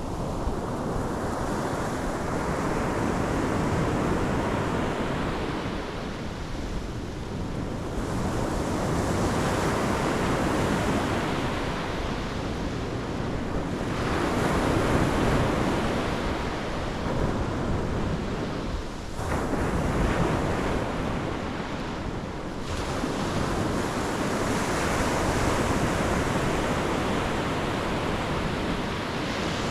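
Pacific Ocean waves breaking and washing up the shore, the surf swelling and easing every few seconds.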